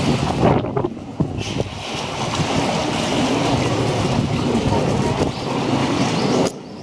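Water splashing and sloshing in a polar bear's pool as the bear plays with its toys in the water, a continuous rushing with short dips in level.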